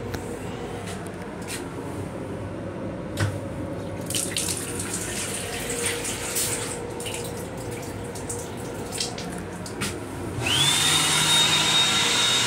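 Faucet of an M7 railcar restroom's combined dryer-faucet-soap wash unit running water into the sink for several seconds, then the unit's hand dryer starting about ten seconds in: loud blowing with a steady high whine. The train's running rumble and a steady hum lie underneath.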